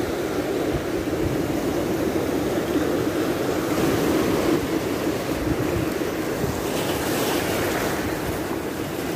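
Surf washing in over a shallow rocky shore: a steady rushing wash of breaking waves that swells a little now and then, with wind on the microphone.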